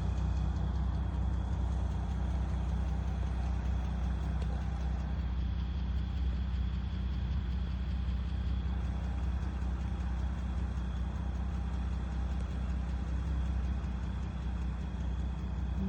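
Steady low mechanical hum, like a motor or engine running at idle, unchanging throughout.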